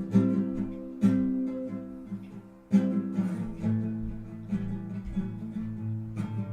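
Acoustic guitar strumming chords, each strum left to ring on, with a fresh strum every second or two.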